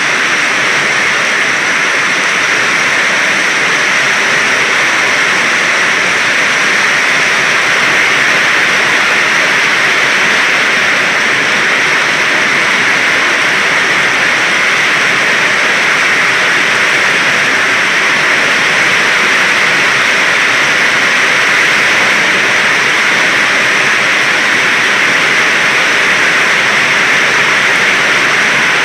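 Heavy rain pouring down in a storm: a loud, steady hiss.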